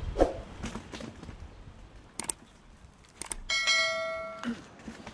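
Subscribe-button animation sound effect: a few sharp clicks, then a bell ding that rings out for about a second and fades.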